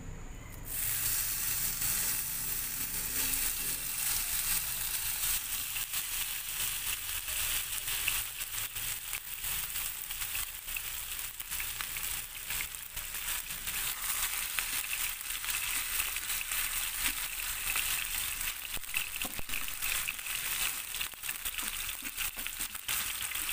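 Pieces of hamburger patty frying in hot oil in a small nonstick pan: a steady sizzle with dense crackling. It starts suddenly about a second in as the meat hits the oil.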